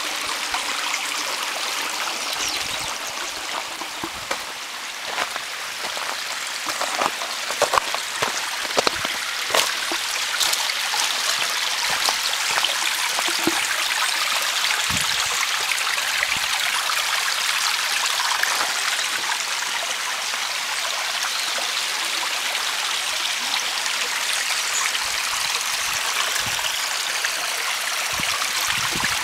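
Small rocky stream trickling and splashing over stones, a steady rushing of water. A few sharp knocks stand out about seven to ten seconds in.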